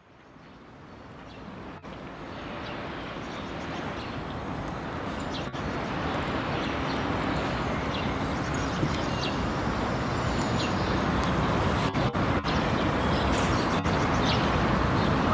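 Steady outdoor background noise fading in over the first few seconds, with a low rumble like distant traffic and faint scattered high ticks.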